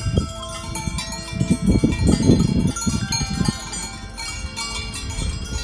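Bells on grazing goats jingling and clinking irregularly, over a low rumble that is loudest from about a second and a half to three and a half seconds in.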